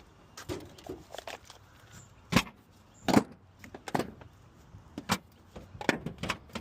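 A series of irregular sharp knocks and clicks, about ten in all, the loudest two a little after two and three seconds in.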